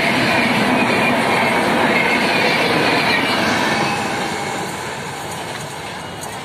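Train of LHB passenger coaches passing at speed close by: a loud, steady rush of wheels on rail that fades from about four seconds in as the last coach goes by and the train draws away.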